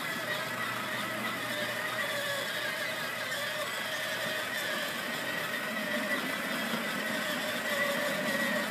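Electric motors and gearboxes of a Fisher-Price Power Wheels ride-on car whining steadily as it drives along.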